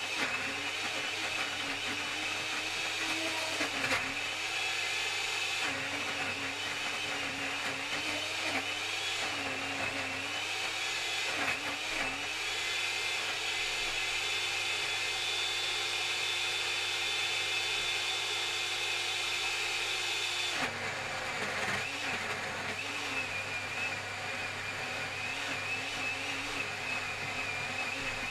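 Morphy Richards Easy Blend Deluxe blender motor running continuously as pineapple is pushed down onto its four-prong blade. The motor's pitch dips and wavers again and again under the load, holds steady for several seconds past the middle, then wavers again.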